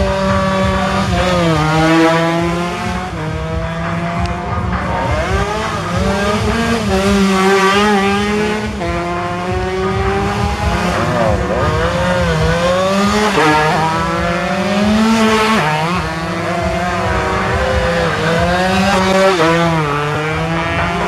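Several two-stroke race motorcycles running at high revs, more than one engine heard at once. Their pitch climbs through each gear and drops repeatedly as the riders shift and brake.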